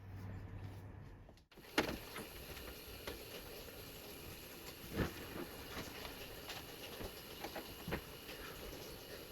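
Hands handling and fitting computer parts: small clicks and taps of plastic and metal, with a few sharper knocks over a steady hiss. A low hum in the first second and a half cuts off abruptly.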